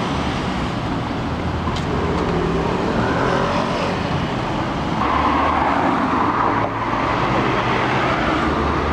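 Steady city street traffic: cars and a motor scooter driving past with their engines running, a little louder from about five seconds in.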